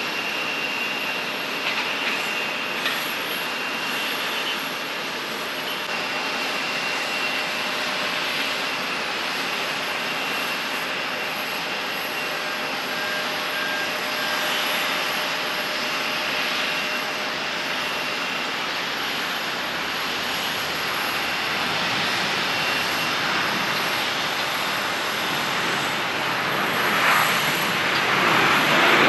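Jet engines of a Boeing 737-800 (CFM56-7B turbofans) running: a steady rushing noise with a thin high whine, growing louder near the end.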